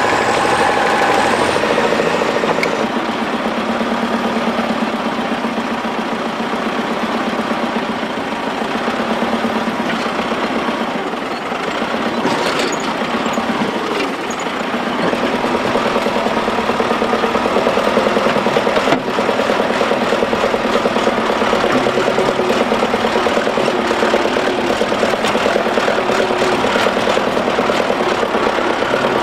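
Diesel engines of a tracked crawler bulldozer and a wheeled tractor running hard under load, a steady, clattering engine drone, as the dozer pushes against the tractor stuck in the mud.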